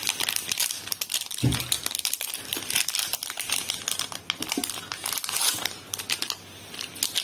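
A plastic cookie wrapper being torn open and peeled back by hand: a dense run of sharp crinkles and crackles, easing off near the end as the biscuit comes out.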